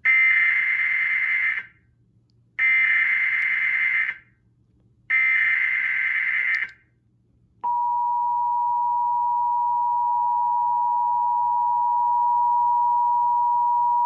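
Emergency Alert System broadcast tones from a TV speaker: three bursts of SAME header data, a shrill digital warble about a second and a half each with gaps between, then about seven and a half seconds in the steady two-tone 853/960 Hz attention signal starts.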